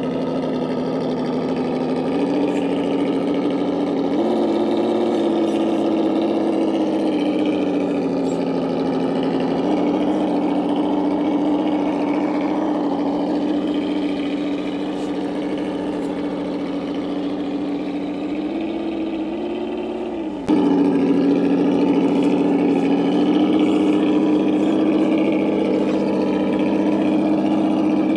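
Simulated engine sound from an RC crawler's add-on sound kit, played through its small speaker: a steady idle hum that steps up and down in pitch as the throttle changes. It climbs briefly about two-thirds of the way through, drops sharply, then carries on louder.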